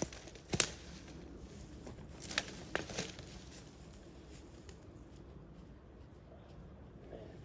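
Dry leaves and twigs crunching and snapping underfoot, with a few sharp cracks in the first three seconds, then fainter rustling.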